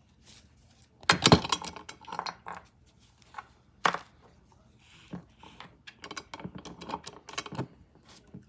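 Small metal parts and tools clinking and knocking as they are handled: the loudest rattle comes about a second in, a sharp knock near four seconds, then a run of lighter clicks.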